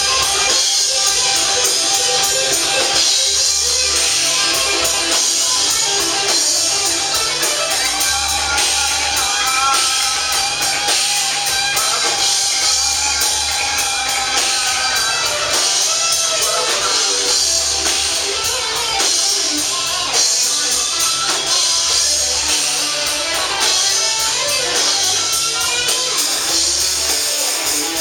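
Live band playing amplified music with a steady beat, recorded at a show through a compact camera's built-in microphone.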